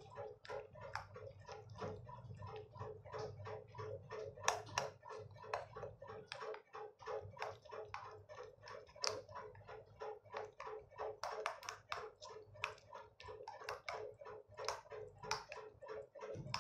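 Metal spoon beating eggs, flour and chopped herbs in a bowl: quick, regular clinks and scrapes of the spoon against the bowl, about four a second.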